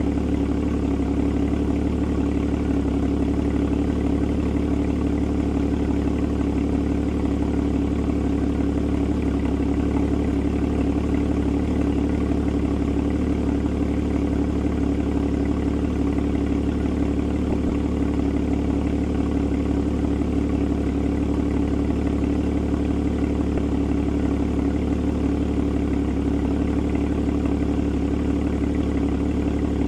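Porsche Boxster (981) flat-six engine idling steadily at an even pitch, with no revving.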